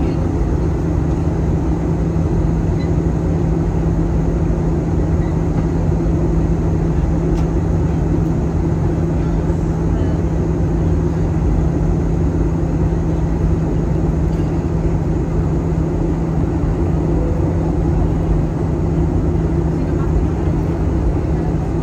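Steady drone inside a passenger airliner's cabin on descent to land: engine and airflow noise with a constant low hum underneath.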